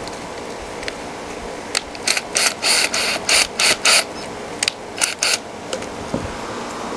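A hand or power tool working on a plywood bending jig in about eight short, sharp bursts over three and a half seconds, with a brief pause in the middle.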